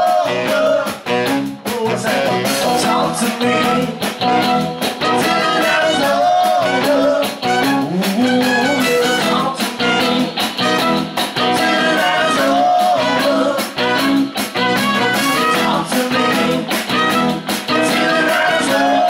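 Live rock band playing a steady groove: electric guitars, bass guitar and drum kit.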